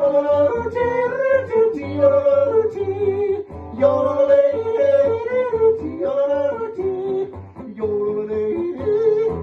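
Wordless yodeling, the voice leaping quickly between notes, over guitar accompaniment.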